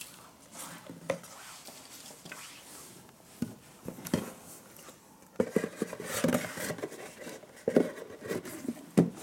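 Handling noises: a sheet of paper moved and lifted on a wooden tabletop with a few light taps, then a cardboard gift box picked up and handled with louder, busier knocks and scraping through the second half.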